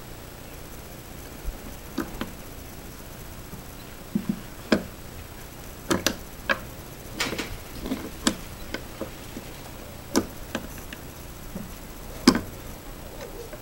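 Scattered sharp clicks and knocks of a hand-lever shotgun-shell press and its steel crimping dies as a plastic shell is set in and star-crimped, the sharpest knock near the end as the lever comes down.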